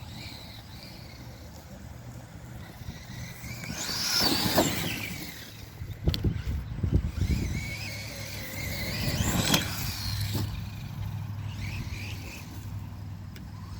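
Redcat Shredder RC monster truck driving on grass, its motor whine rising under throttle about four seconds in and again near ten seconds. A quick cluster of knocks comes around six to seven seconds, as the truck bounces or lands.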